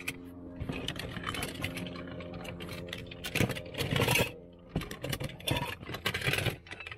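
Small diecast and plastic toy cars clicking, clattering and scraping against each other as hands rummage through a cardboard box of them, with a steady low hum underneath.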